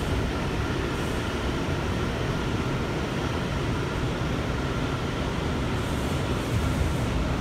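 New York City subway car running through a tunnel, heard from inside the car: a steady low rumble with a faint steady tone above it, growing a little louder near the end.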